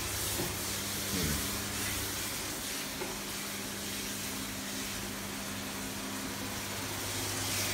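Steady hiss of food sizzling in a frying pan, with a low steady hum underneath.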